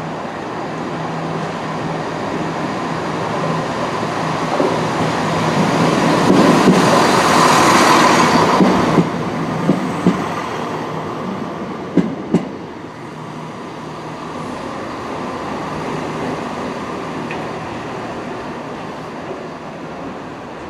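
CrossCountry Class 170 Turbostar diesel multiple unit pulling out of the station, its engines running under power, growing loudest as it passes close by. A few sharp wheel knocks come over the rail joints about ten and twelve seconds in, then the sound recedes.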